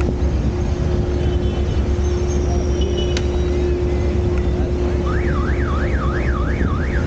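City street noise: a steady low traffic rumble with a constant hum. About five seconds in, an electronic alarm tone starts sweeping up and down, about three sweeps a second, for roughly two seconds.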